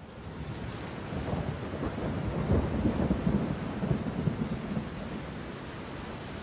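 Rolling rumble of thunder over a steady hiss of rain, swelling to its loudest about two and a half seconds in and then easing off.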